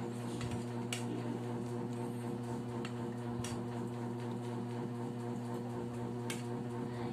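Steady low electrical hum, with a few light clicks of a metal ladle against a wire strainer and stainless steel pot.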